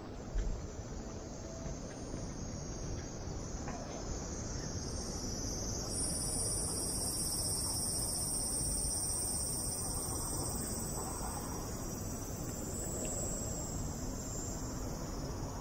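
Cicadas buzzing steadily in a high, continuous band that grows louder about six seconds in, over street background noise.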